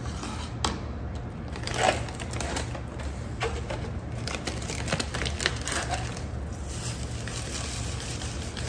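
Cardboard box of panko breadcrumbs being handled and its inner plastic bag crinkled and pulled open, a string of rustles and clicks, the loudest about two seconds in. Near the end the dry crumbs begin pouring from the box into a plastic container.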